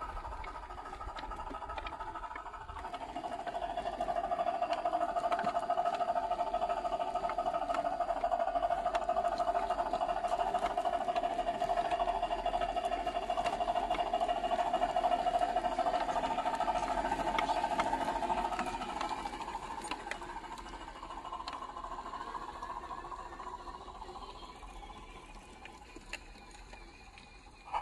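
Whine of a scale RC crawler's electric motor and gear drivetrain as the truck drives over stones. It grows louder about three seconds in, holds steady, then fades toward the end.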